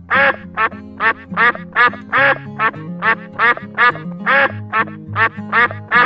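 Ducks quacking in a rapid, continuous series, about three quacks a second, over background music.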